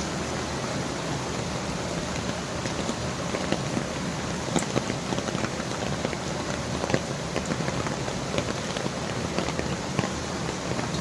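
Heavy rain falling steadily, with many individual drops striking hard surfaces close by in sharp irregular ticks.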